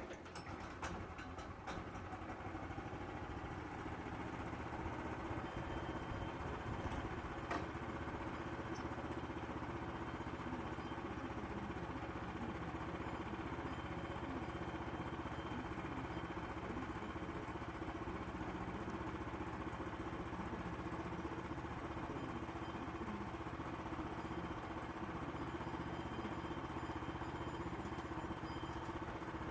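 Sawmill engine running steadily, building up over the first few seconds and then holding an even speed.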